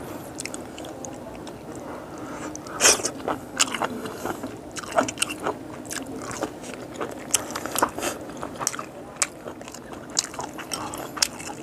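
A person chewing boiled frog close to the microphone, in a run of short crisp crunches. The loudest crunch comes about three seconds in.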